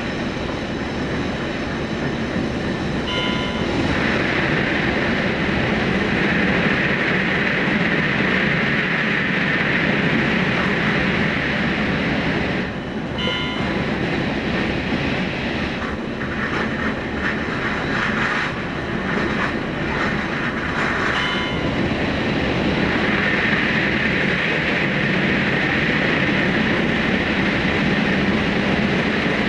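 Running noise of the Super Hakucho limited express electric train, heard from its front end and played at about 2.15 times speed: a continuous rushing of wheels on rail, on through a tunnel. Three short tones sound over it, about three seconds in, near the middle and about two-thirds of the way through.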